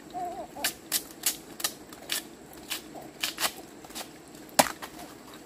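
A machete striking a bamboo shoot: about a dozen sharp, irregularly spaced cuts, the loudest about four and a half seconds in, as the husk is chopped off the shoot.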